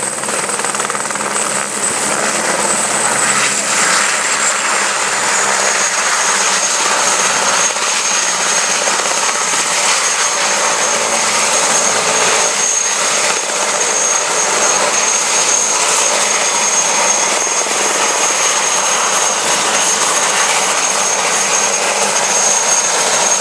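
Helicopter turbine engines and rotors running, with a steady high turbine whine that drops in pitch about five seconds in.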